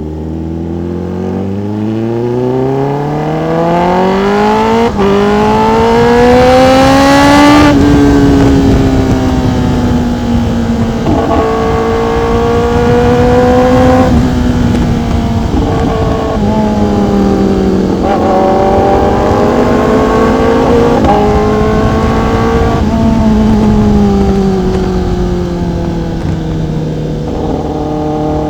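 Sport motorcycle engine accelerating hard, its pitch climbing through two upshifts in the first eight seconds, then rising and falling with the throttle while cruising, over a steady rush of wind and road noise.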